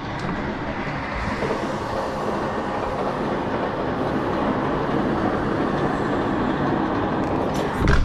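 Passing trains running along the tracks, a red Keikyu train among them, heard loud and steady through the open hotel window. There is a knock near the end.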